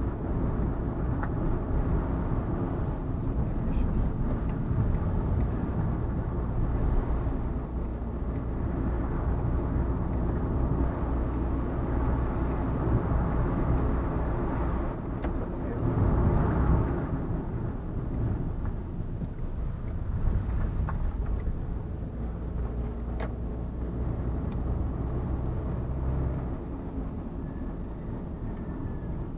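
A vehicle on the move: a steady low engine hum with road noise, swelling louder for a couple of seconds just past halfway, with a few faint clicks.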